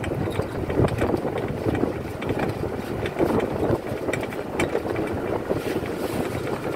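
Wind rushing over the microphone from an open-sided electric cart moving along a concrete causeway, with the rumble of its tyres and small rattles and knocks from the cart.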